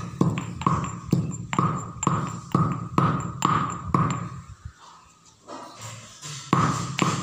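Stone pestle pounding in a stone mortar, about two strikes a second, each a thud with a short ringing ping. The pounding stops for about two seconds past the middle and starts again near the end.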